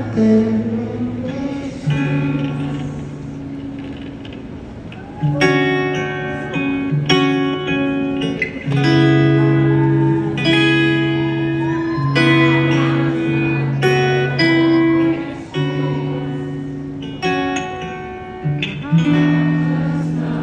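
Guitar played live through a concert sound system. It is softer for the first few seconds, then ringing chords are struck about once a second.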